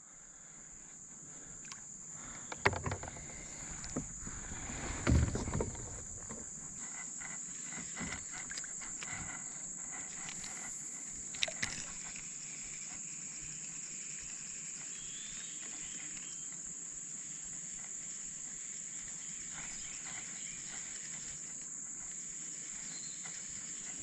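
Steady high-pitched insect chorus, typical of crickets, with a few knocks and a rustling swell in the first six seconds.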